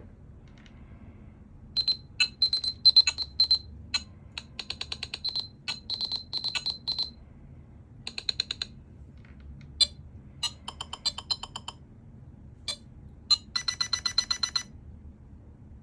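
Nothing Phone (1) playing its built-in Glyph ringtones through its own speaker. It sounds as several separate patterns of short, sharp, high-pitched electronic clicks and beeps in quick rhythms, with brief gaps between them. Near the end comes a fast run of ticks.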